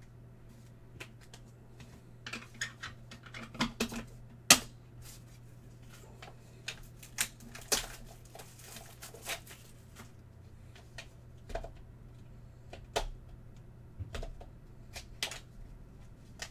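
Hands handling hard plastic trading-card cases and card packaging: an uneven run of sharp clicks and taps with light rustling, the loudest click about four and a half seconds in.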